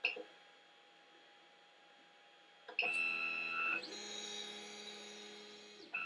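Creality Ender 5's stepper motors whining as the printhead moves to the next bed-leveling position. There is a steady high whine for about a second, then a lower, fuller motor tone for about two seconds as the head travels. The first whine returns near the end.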